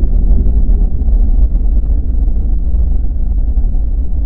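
Intro sound effect: a loud, deep, steady rumble that has swelled up just before and holds at full strength.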